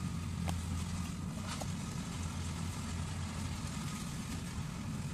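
Yanmar rice combine harvester's engine running steadily as it cuts a paddy of ripe rice, a low even drone with a faint thin whine above it. Two brief faint clicks sound in the first two seconds.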